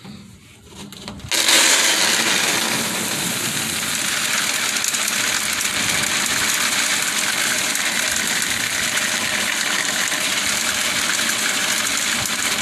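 Cattle feed pouring down the sheet-metal chute of a bulk feed tank into a plastic bucket. It makes a steady rushing hiss that starts suddenly about a second in, as the slide gate is opened.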